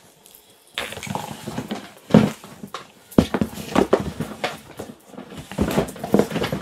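Small cardboard boxes rustling, scraping and knocking together as a hand rummages among them inside a large cardboard box, starting about a second in, with one sharper knock a second later.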